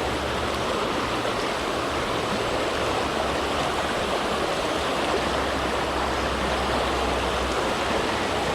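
River current rushing steadily over shallow riffles, an even, unbroken sound of running water.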